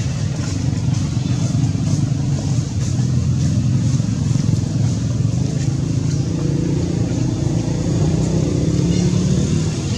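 A steady low rumble of a running engine.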